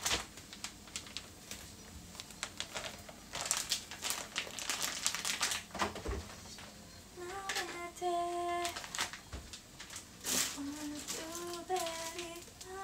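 Kitchen clatter: a run of sharp clicks and knocks with some rustling, busiest in the first half. Then a woman hums a tune in long held notes, twice, near the end.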